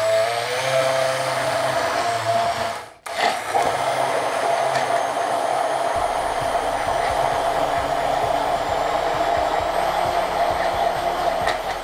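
Philips stick blender running steadily with its blade in a beaker of strawberries and milk, puréeing them into a milkshake. The motor cuts out for a moment about three seconds in, then starts again and runs until near the end.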